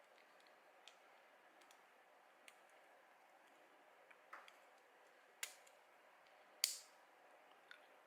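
Scattered faint clicks of small 3D-printed plastic parts being handled, with two sharper snaps about five and a half and nearly seven seconds in, the second the loudest.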